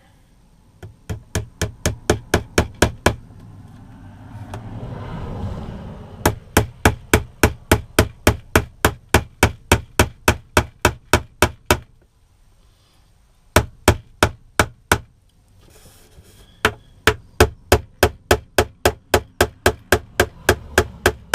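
A hammer tapping pins into the top of a box, in quick runs of sharp strikes, about four or five a second, with short pauses between runs.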